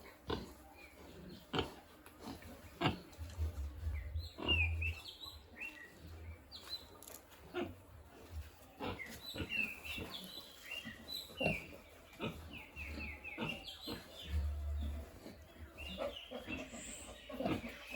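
Pigs grunting and snuffling, with scattered short sharp knocks and clicks throughout. Small birds chirp in the background a few seconds in and again around the middle.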